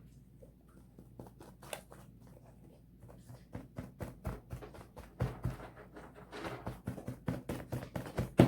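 Homemade slime being squeezed and kneaded by hand, giving irregular sticky clicks and pops that grow much busier about three seconds in, with one sharper snap near the end.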